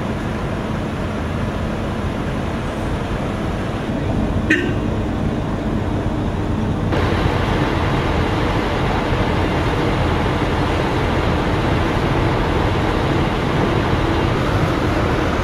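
Steady outdoor roadside noise of traffic and running engines, with a brief high squeal about four and a half seconds in.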